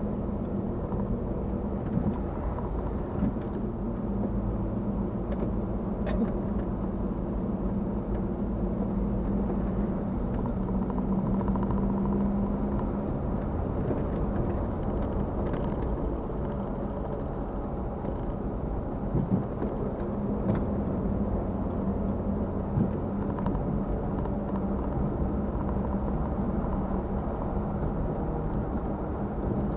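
Mitsubishi Pajero's engine running steadily, heard from inside the cabin while driving, with rumbling road noise and a few short knocks and rattles.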